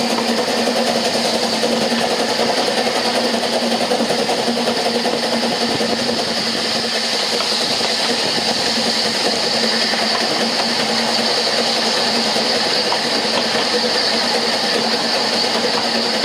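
Narrow-gauge steam train hauled by Double Fairlie locomotive no. 12 "David Lloyd George", running steadily and heard from an open carriage window: continuous wheel-and-rail running noise with a steady hum.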